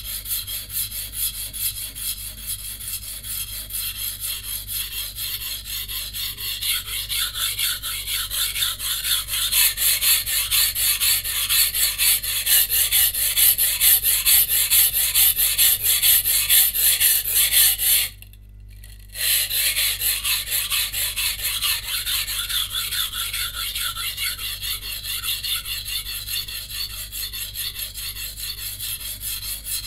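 Santoku knife blade scraped rapidly back and forth on a coarse whetstone, a dense rhythmic rasping of steel on stone, grinding out chips along the edge. The strokes stop for about a second about two-thirds of the way through, then resume.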